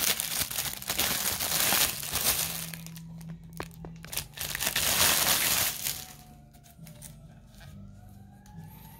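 Clear plastic wrapping crinkling and rustling as it is pulled off a roll of holographic heat transfer foil. The crinkling goes quiet after about six seconds.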